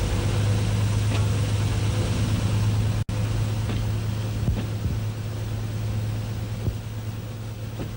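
An engine running steadily with a low drone. The sound cuts out for an instant about three seconds in.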